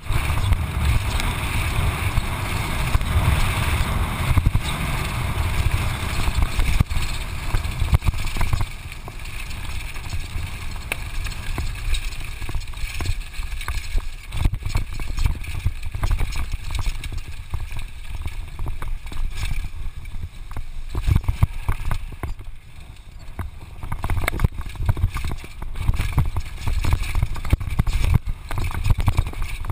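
Wind buffeting the microphone with the rattle and knocking of a downhill mountain bike running fast over a gravel road and rough trail. The wind noise eases about eight seconds in, leaving the rattle and many sharp knocks from the bumps.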